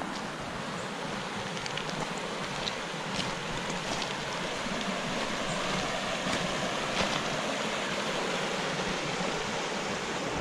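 Shallow river running over a pebbly riffle and small cascade: a steady rush of water that grows slightly louder, with a few faint clicks on top.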